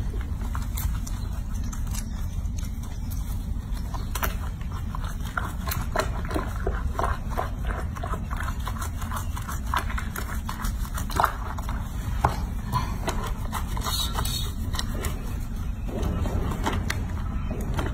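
Hands rubbing soapy lather into a baby monkey's wet fur in a sink of water: wet squelching with a run of small crackling clicks, over a steady low background rumble.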